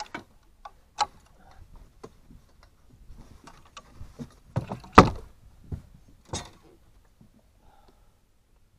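Knocks and clatter of gear being handled on a boat deck: a dozen or so sharp clacks, the loudest about five seconds in.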